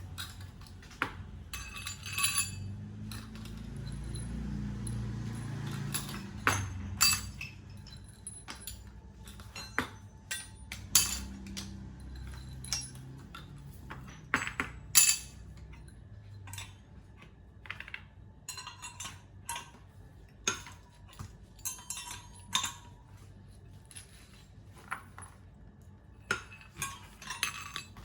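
Repeated light metallic clinks and clicks of metal parts being handled. A low hum underneath fades out about halfway through.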